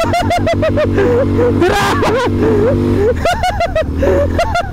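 Background music with a quick, bouncing up-and-down melody, laid over the steady low hum of an ATV engine.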